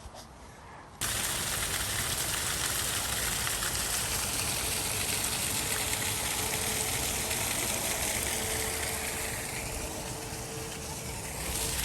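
Waterfall: steady rushing water that starts abruptly about a second in.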